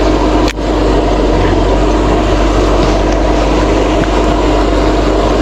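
Steady, loud machine drone with a constant hum, dipping briefly about half a second in.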